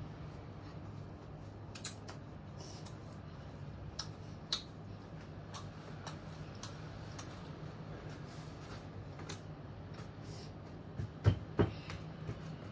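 Steady low hum of a wall-mounted air conditioner under scattered small clicks and crackles from a child handling and chewing bread. Two louder knocks come close together near the end.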